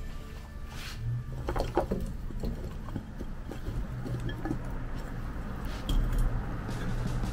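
Raw potato and carrot chunks poured from a bowl into a stainless steel Saladmaster pot of stewing beef, with a few sharp knocks and clatters one to two seconds in, then softer shuffling as the pieces settle.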